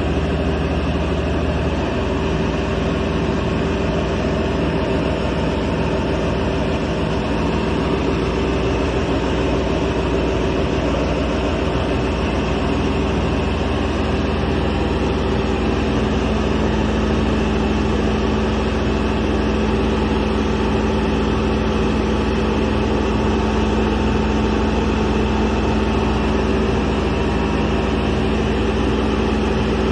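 Kaishan KS400 water well drilling rig running: a loud, steady engine drone, its low note shifting slightly about two seconds in.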